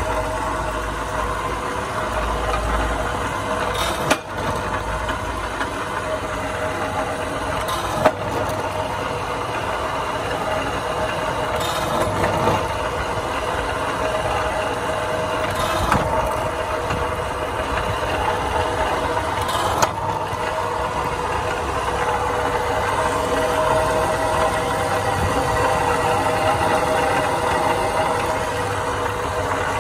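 SEOUL SUC25W electric rebar cutter running, its motor and gear train humming steadily, with five sharp clacks about four seconds apart as the blade shears through 25 mm steel rebar.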